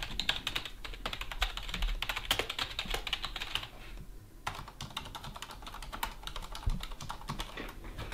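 Typing on a Corsair Strafe RGB mechanical keyboard with Cherry MX Silent switches: a fast run of keystrokes, a brief pause about four seconds in, then more typing.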